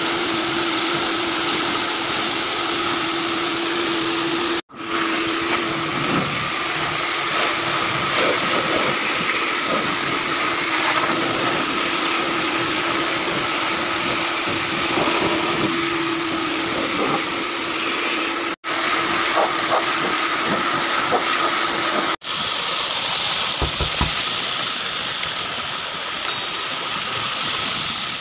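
High-pressure washer jet spraying water onto cooling-tower fill media and fan blades: a loud, steady hiss with a steady hum beneath it. It cuts out abruptly three times.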